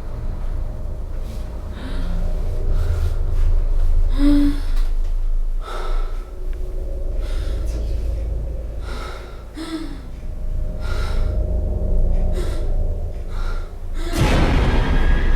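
A person breathing hard in repeated gasps over a steady low rumble, with a longer, louder rush of breath near the end.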